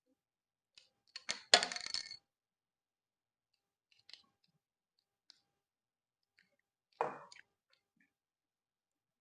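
Small plastic and diecast model-kit parts clicking and clinking as they are handled and fitted together: a loud rattling clatter about a second and a half in, a few faint ticks, then a shorter clatter about seven seconds in.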